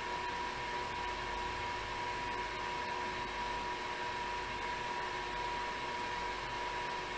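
Indoor bike trainer running under steady pedaling: an even whir with a constant high whine.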